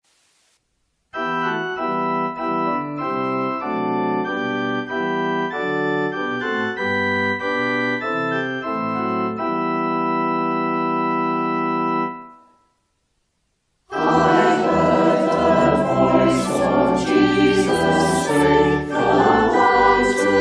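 Church organ playing a short introduction of sustained, changing chords that ends on a long held chord. After a pause of about a second and a half, the choir starts singing over steady low organ notes.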